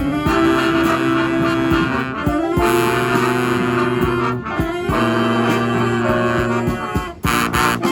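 Live street brass band playing, with saxophone and brass holding long chords. Near the end the horns switch to short, punchy staccato hits.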